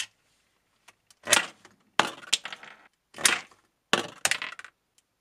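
Cap Revolution Bottleman Aquasports, a plastic toy bottle-cap blaster, firing uncharged shots of its official bottle-cap ammunition through a speed sensor. Sharp plastic snaps and clatters come in four bursts, about a second apart.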